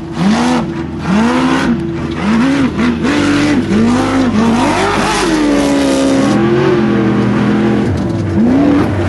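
Off-road race vehicle's engine revving up and dropping back again and again, about once a second, under repeated throttle. About five seconds in it makes one longer climb in pitch, then runs steadier for a couple of seconds before the short revs return near the end.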